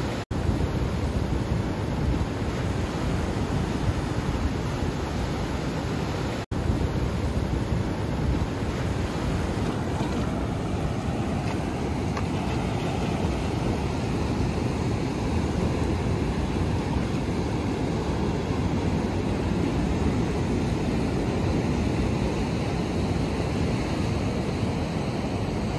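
Ocean surf washing and breaking over rock ledges, a steady rush with wind buffeting the microphone. The sound drops out for an instant twice, just after the start and about six seconds in.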